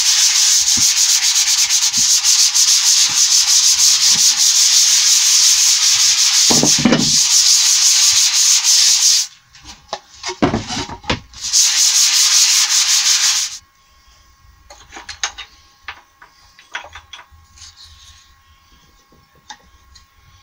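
120-grit abrasive on a hand sanding pad rubbing back and forth over a moisture-resistant MDF panel: a loud, steady, scratchy hiss that breaks off about nine seconds in, with a knock as the panel is turned over, resumes briefly and stops about thirteen seconds in. After that there are only faint knocks and taps of wooden parts being handled.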